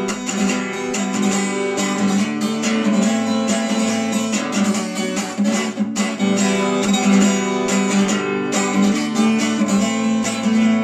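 Acoustic guitar strummed in a steady rhythm, an instrumental chord passage with no singing.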